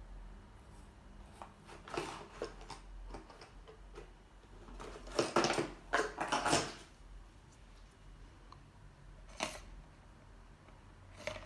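Makeup brushes and cosmetics being handled and sorted through: scattered light clicks and rattles, with a denser burst of clatter about five to seven seconds in.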